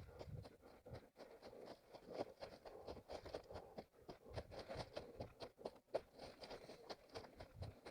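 Faint footsteps and rustling of an orienteer moving over forest ground: a string of irregular crunches, scuffs and brushing against undergrowth, with a few duller footfalls.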